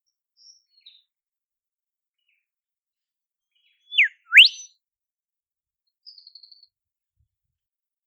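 Olive whistler song: a loud clear whistle falling in pitch, followed at once by a second whistle sweeping steeply upward, about four seconds in. Two faint short high notes come before it, and a quick faint run of high notes follows near the end.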